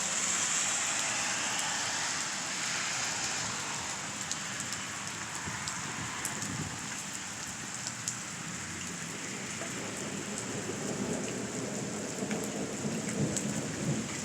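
Steady rain falling and pattering on surfaces during a thunderstorm.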